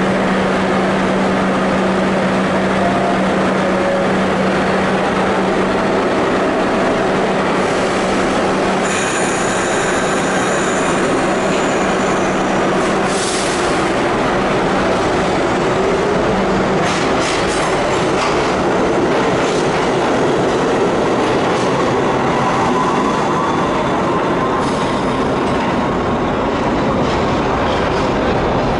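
New York City Subway 7 train pulling out of the station and running past, with a steady low hum, wheels clattering over rail joints and high-pitched wheel squeal. The hum stops about two-thirds of the way through.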